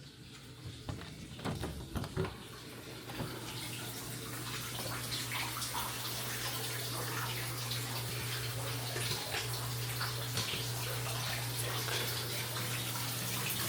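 Shower running: a steady hiss of falling water that grows louder over the first few seconds, with a steady low hum underneath. A few knocks come about one to two seconds in.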